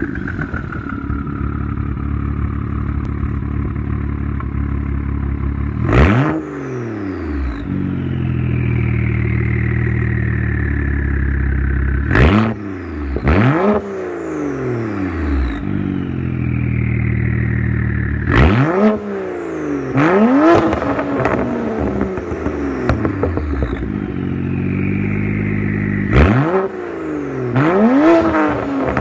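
BMW N54 twin-turbo 3.0-litre straight-six idling through a custom 3-inch exhaust. It is blipped in quick free revs, singly or two or three at a time, about every six seconds. After each rev the turbochargers whistle as they spool down, falling slowly in pitch.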